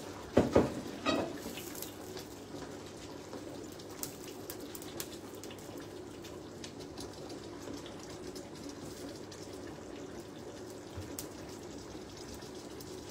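Tomato sauce simmering in a frying pan, with a steady bubbling hiss and faint scattered crackles, while slices of raw steak are laid into it by hand. There are a few louder soft handling sounds in the first second or so.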